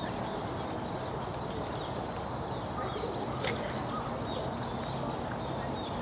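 Many small birds chirping in quick, repeated notes over a steady low background murmur of the outdoor garden, with one sharp click about halfway through.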